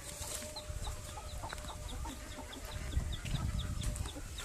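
Chickens clucking in a backyard coop, over a steady run of short high chirps repeating about four times a second.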